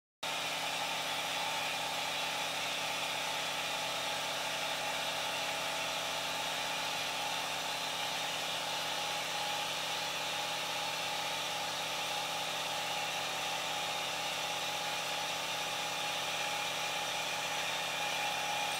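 Milling machine running steadily at a constant pitch, a steady hum of several tones with a high hiss.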